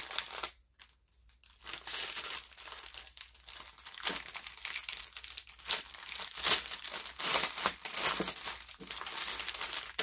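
Clear plastic packaging bag crinkling and crackling as hands handle and open it, with a short pause about a second in.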